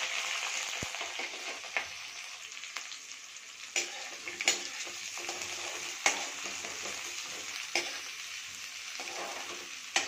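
Sliced onions sizzling in hot mustard oil in a steel kadhai, loudest at the start and then settling down, as they fry for a tadka. A metal spatula stirs them, scraping and knocking sharply against the pan about five times.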